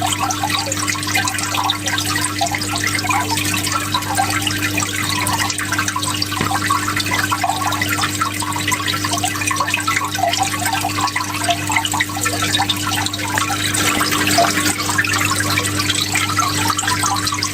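Water flowing steadily with a continuous bubbling, splashing rush, and a steady low hum underneath.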